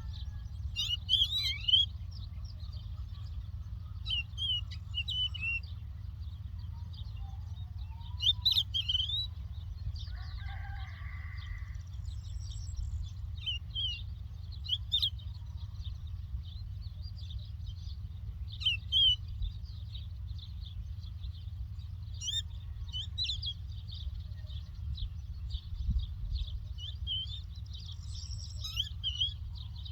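Larks singing: steady high twittering with louder, quick warbled phrases every few seconds. A lower call sounds briefly about a third of the way in, over a steady low rumble.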